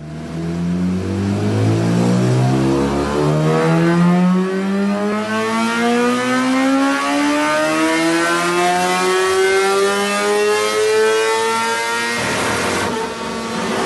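Motorcycle engine accelerating, its pitch climbing steadily for about twelve seconds. A short rush of noise near the end is followed by a steadier tone.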